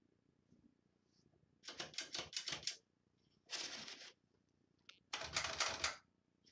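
1969 Smith Corona Super Sterling manual portable typewriter being typed on. There are two quick runs of key strikes, each about a second long, the first starting about a second and a half in, with a short denser clatter between them.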